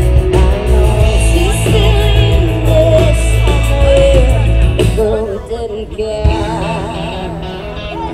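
A live band playing amplified music with a singer. The heavy bass drops out about five seconds in and the music goes on a little quieter.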